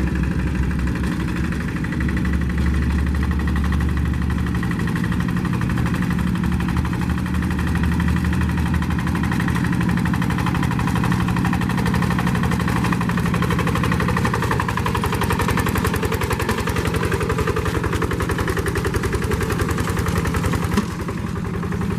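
Two-wheel paddy-field hand tractor's diesel engine running steadily with a rapid, even chugging pulse. Its tone shifts slightly a few seconds in and again past the middle, and there is a brief knock near the end.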